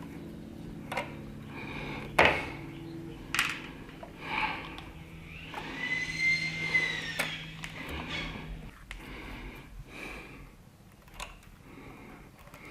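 Handling noise from working on a light-switch wall box with hand tools and wiring: several sharp clicks and knocks, and a short squeak in the middle. A steady low hum runs under them and stops about two-thirds of the way in.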